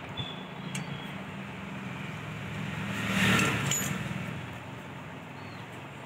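A passing road vehicle swells and fades about three seconds in, over a steady low hum, with a few faint clicks from a screwdriver on the cover screws of a ceiling fan motor.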